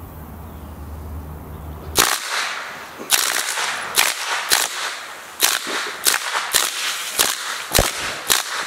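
Suppressed Cobray M11 9 mm machine gun firing short bursts and single shots into plastic soda bottles: about a dozen sharp cracks from about two seconds in, roughly half a second apart.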